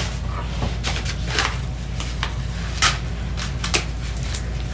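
Scattered clicks, taps and short rustles of small objects and packaging being handled, over a steady low hum.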